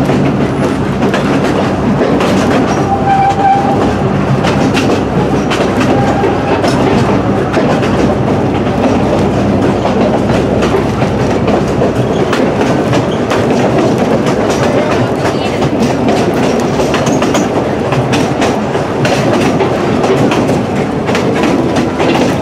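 Two-foot narrow-gauge passenger train rolling along, heard from aboard an open car: a steady rumble of wheels on rails with clicks over the rail joints.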